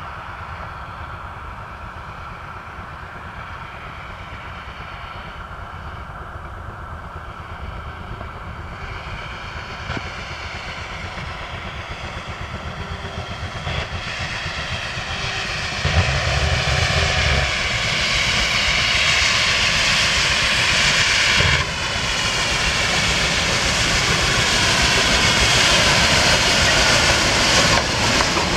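Furka Oberalp rack steam locomotive F.O 4 approaching with its coaches, the exhaust and steam hiss growing steadily louder as it draws near. There is a brief low rumble about halfway through.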